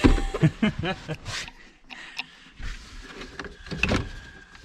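Toyota FJ Cruiser's plastic center console scraping, knocking and clicking as it is worked loose and pulled out past the shifter and parking brake.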